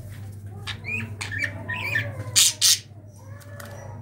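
Budgerigar calling: a run of short warbling chirps, then two loud harsh squawks in quick succession a little past the middle. These are the calls of the surviving bird as it searches the cage for its dead mate.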